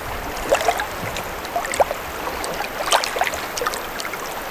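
Light rain falling on a lake's surface: an even hiss with scattered small drips and plinks.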